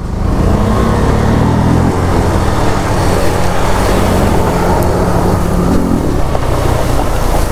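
KTM Duke 390's single-cylinder engine revving as the motorcycle is ridden through a water crossing, with a dense rush of splashing and spraying water. The engine note climbs over the first two seconds, then holds.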